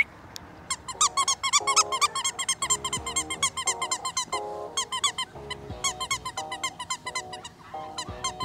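A litter of almost six-week-old puppies squealing and yipping in a rapid, overlapping chorus of high squeaks, several a second, with lower whines and grumbles mixed in, as they tug at a rag toy.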